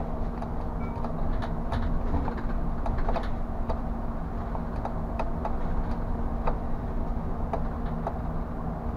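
Inside the cab of a city bus on the move: a steady low rumble and hum from the engine and drivetrain, with frequent irregular clicks and rattles from the cab's fittings.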